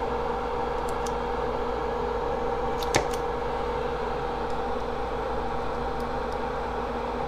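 Bench fume extractor fan running with a steady hum. A single light tap is heard about three seconds in.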